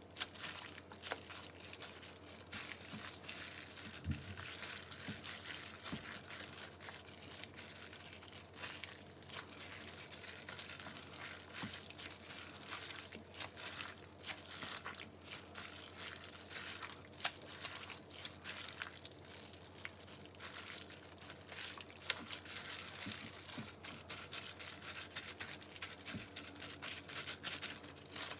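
A hand in a disposable plastic glove kneading marinated sliced meat and vegetables in a stainless steel bowl: continuous wet squishing and crinkling of the glove, with many small clicks and a few low knocks.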